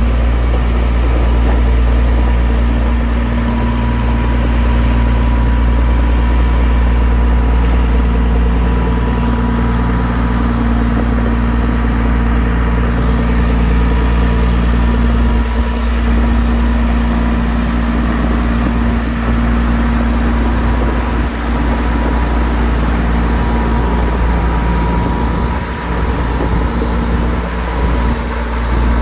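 A running engine: a loud, even low rumble with a constant hum, holding steady with no revving.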